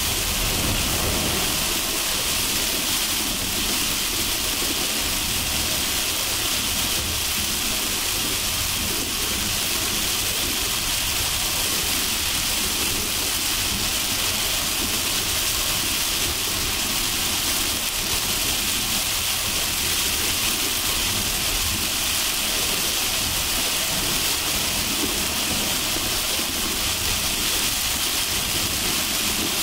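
Heavy rain falling on a car driving on a highway: a steady hiss of rain over the low, even rumble of tyres on the wet road and the engine.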